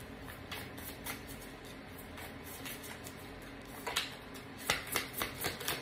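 A deck of oracle cards shuffled by hand: soft flicks and rustles of card against card, sparse at first and coming faster and louder from about two-thirds of the way in.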